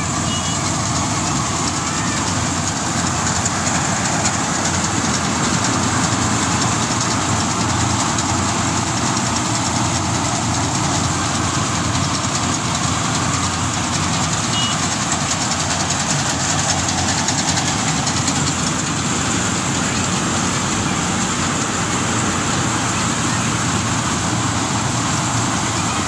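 Compact tracked rice combine harvester running steadily while cutting and threshing rice in the field: a loud, constant mechanical noise of engine and threshing works that does not change.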